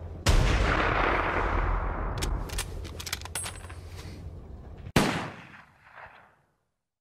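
Gunshot sound effects: a loud shot with a long rumbling decay, a quick run of sharp clicks in the middle, then a second sharp shot about five seconds in that dies away quickly.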